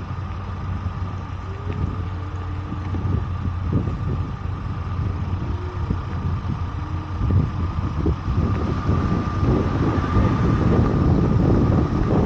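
Vehicle engine running steadily, with wind buffeting the microphone more and more strongly in the second half.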